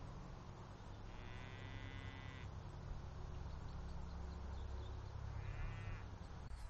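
Two faint sheep bleats, a longer one about a second in and a shorter one near the end, over a steady low rumble.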